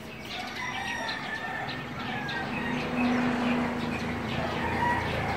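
Roosters crowing, several long held calls overlapping, with small birds chirping.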